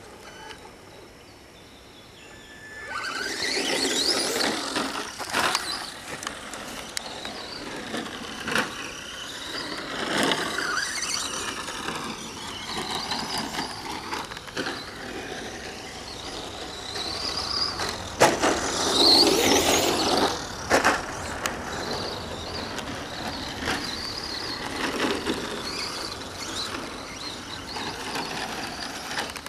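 Team Associated SC10 electric short-course RC trucks running: high motor whine that rises and falls with the throttle, starting about three seconds in, with tyre scrabble and scattered sharp knocks.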